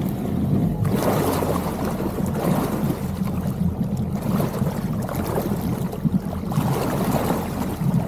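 Yamaha FX SVHO personal watercraft moving slowly at no-wake speed: a steady low engine drone, with water rushing around the hull that swells and fades every second or two.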